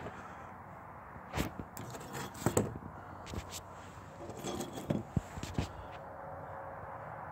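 Footsteps and shoe scuffs on a hard floor, heard as irregular sharp clicks and knocks, with a few handling scrapes.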